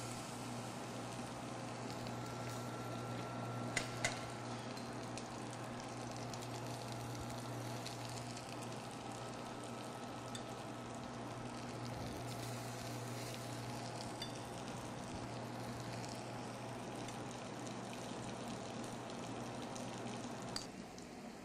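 Banana halves frying in butter in a nonstick frying pan: a steady sizzle, with a low steady hum beneath. Two sharp clicks sound about four seconds in, and another near the end.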